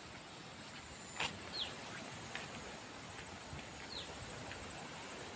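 Steady rush of a flowing stream, with a small bird giving a short falling chirp twice and a faint high steady insect whine. A single sharp click about a second in is the loudest sound.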